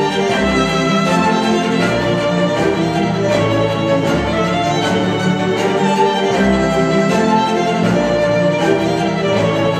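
String music with a violin lead and orchestral strings, played back through a pair of KEF R3 bookshelf speakers at a steady level.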